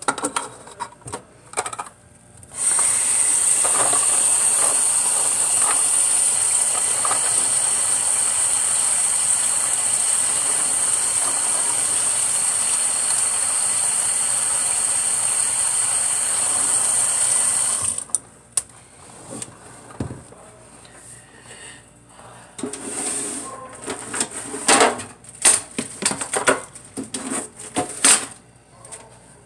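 Kitchen tap running into a stainless steel sink: a steady rush of water that starts a few seconds in and is shut off abruptly a little past the middle. Before and after it, light clicks, clatter and splashing of plastic lip gloss tubes and a plastic tub being handled in soapy water.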